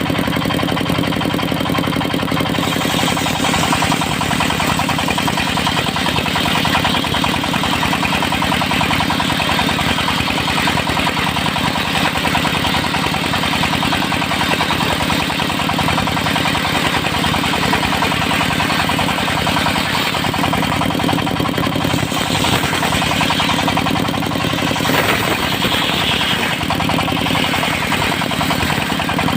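Engine of a portable circular-saw sawmill running steadily and driving the blade. A higher hiss, typical of the saw blade in teak wood, comes in about three seconds in and shifts a few times near the end.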